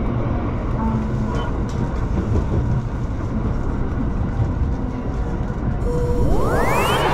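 Shinano Railway SR1 series electric train running, heard from inside the driver's cab: a steady low rumble of wheels on the rails. Near the end a whoosh sound effect sweeps up in pitch.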